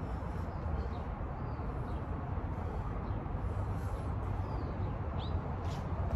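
Steady low outdoor rumble, with a few faint bird chirps above it.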